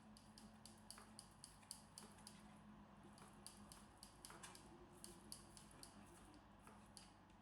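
Faint, quick knife strokes chopping cooked chicken into small cubes on a cutting board, about three taps a second with short pauses.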